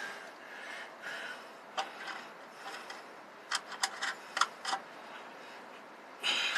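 A few light metallic clicks, spaced apart, as washers and nuts are handled and threaded onto the threaded rods of a battery hold-down lock, with a short scraping rustle near the end.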